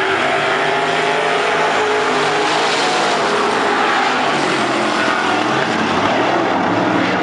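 A pack of dirt-track sportsman race cars running around the oval together, their engines revving hard, with pitches rising and falling as the cars accelerate and lift through the turns.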